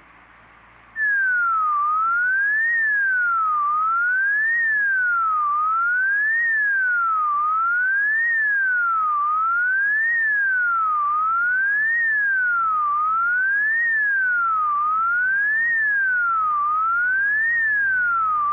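Synthesized emergency-alert siren: a single pure tone sweeping up and down evenly, rising and falling about every two seconds. It starts about a second in and cuts off abruptly at the end.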